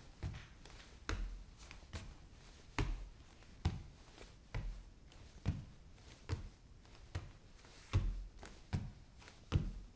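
Bare feet walking on a wooden floor: a steady pace of low thudding steps, a little more than one a second.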